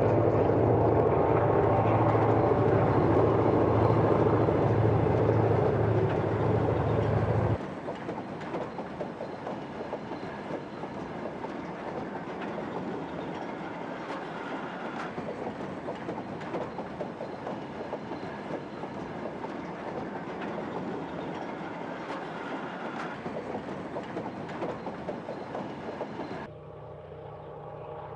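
Goods train locomotive's engine running loudly with a steady hum. After a sudden cut, a string of goods wagons rolls by with a continuous clickety-clack of wheels over rail joints. Near the end a quieter engine hum takes over.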